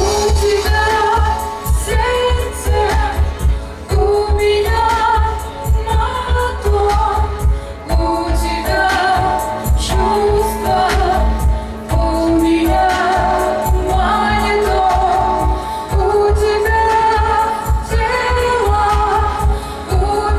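Live music: a woman singing a melody into a handheld microphone, over backing music with a deep, pulsing bass beat.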